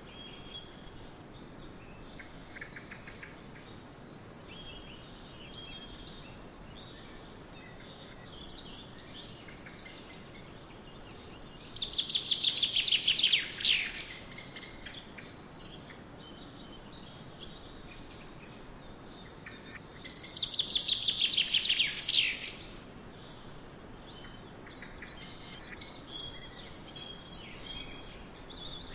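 Songbirds singing: one bird gives two loud, fast descending trills about eight seconds apart, each lasting about two seconds, over quieter scattered chirps from other birds and a faint steady hiss.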